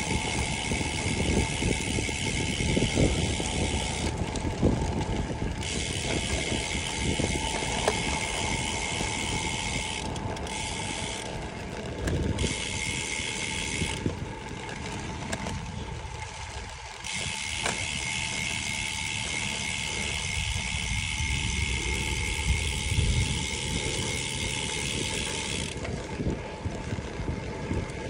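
Bicycle tyres rolling over packed dirt and loose gravel, with a steady rumble and wind on the handlebar-mounted microphone. A rear freehub buzzes in stretches while coasting, cutting out and coming back several times.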